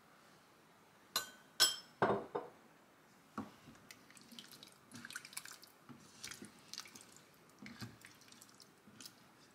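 Silicone spoon stirring a chunky beef and vegetable stew in a pot: wet stirring with many small, irregular clicks, after a few sharp knocks in the first couple of seconds.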